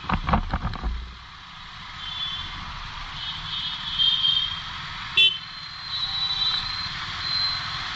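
Congested street traffic moving at walking pace: motorcycle and auto-rickshaw engines running in stop-and-go, with high horn beeps off and on and one short loud horn honk about five seconds in. A few knocks sound in the first second.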